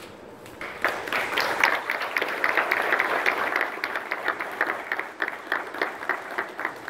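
Audience applauding. The clapping starts about half a second in, dense at first, then thins out into fewer, separate claps near the end.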